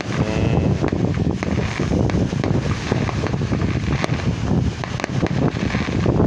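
Wind buffeting the microphone, a steady low rumble throughout, with a few faint sharp pops scattered through it.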